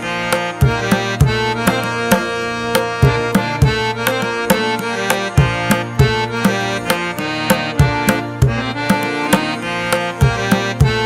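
Instrumental music with a steady drum beat under a held melody.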